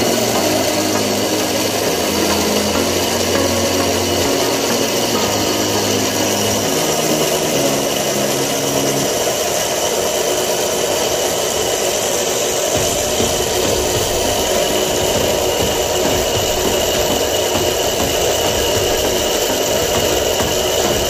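Steady mechanical running noise of a corrugated plastic hose production machine, with a low hum that drops away about nine seconds in.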